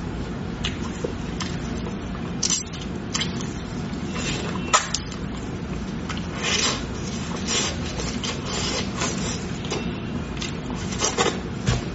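Close-miked eating: chewing and gnawing braised pork off a bone, with short wet crackles and rustles and a sharp click about five seconds in.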